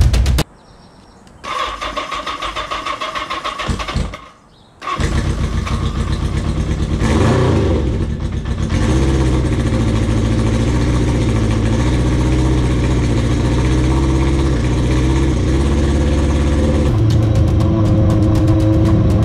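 1980 Kawasaki KZ750 LTD motorcycle engine cranked on the electric starter in a run of even pulses, a short pause, then catching about five seconds in, revving briefly and settling into a steady idle.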